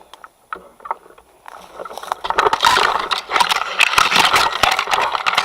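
Loud, irregular rustling and scraping close to the microphone, with scattered sharp clicks, starting about a second and a half in, like a player moving through brush with his gear rubbing.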